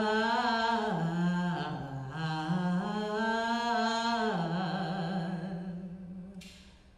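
A woman humming a slow, wordless melody into a microphone, holding each note for about a second and gliding between them, then fading out about five seconds in. A short hiss follows near the end.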